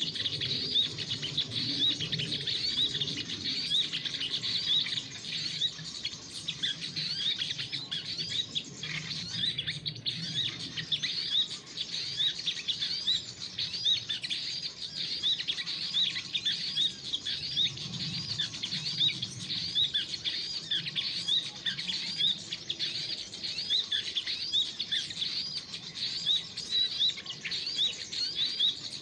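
Small songbird calling: a short high chirp repeated steadily, about two a second.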